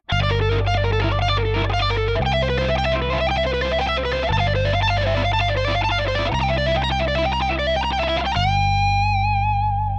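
Overdriven electric guitar playing a fast lead run over a backing vamp of two chords, Gm7 and C, that alternate about every two seconds. About eight seconds in, it bends F up to the root G high on the neck and holds the note with a wide vibrato.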